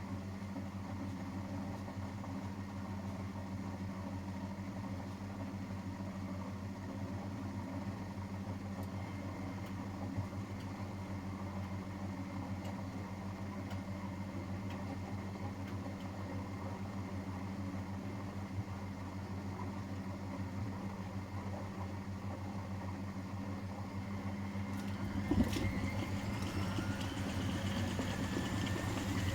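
Miele Professional WS5436 washing machine running with a steady low motor hum. About 25 seconds in there is a click, and then a whine rises in pitch as the motor and drum speed up.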